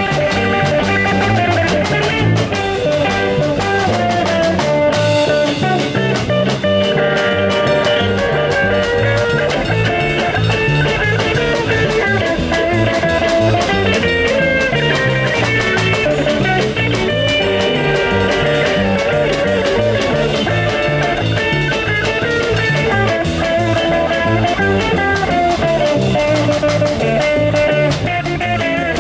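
Live instrumental rock from a street band: electric guitar, bass guitar and violin over a small drum kit, playing a steady beat.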